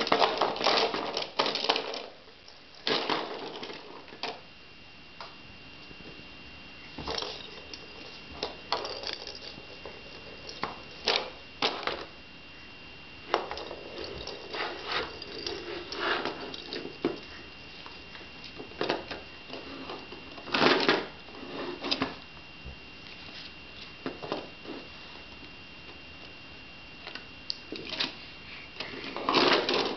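Irregular clattering and knocking of a plastic stacking-ring toy being grabbed, tipped and pushed across a wooden floor, with a few louder bursts of clatter.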